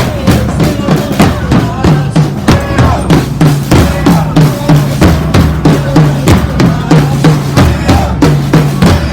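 Drums playing a steady beat of about three strokes a second, with a deep, pitched drum on the beat.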